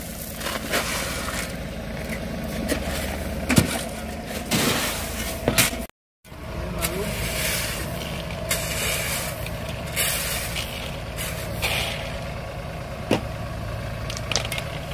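Tracked mini loader's engine running steadily, with the scrape and crunch of a shovel working into gravel and a few sharp knocks. A brief dropout about six seconds in.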